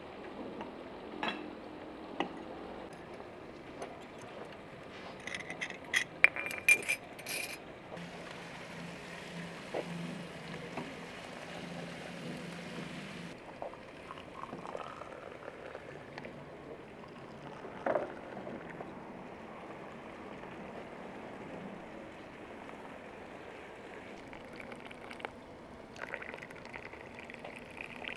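Glass tea glasses clinking against each other and a metal tray, then water running from a samovar's tap into the glasses for about five seconds and stopping abruptly. Later, tea is poured from a teapot into the glasses.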